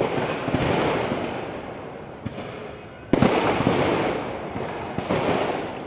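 Riot-police guns firing: about four loud shots, each trailing a long echo, the loudest about three seconds in.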